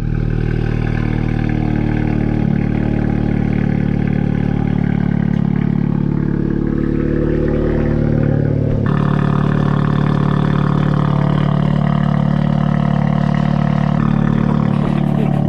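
Honda Civic Type R FK8's turbocharged 2.0-litre four-cylinder running steadily through a catless straight-pipe downpipe, an even exhaust drone with little change in pitch. The sound turns harsher about nine seconds in.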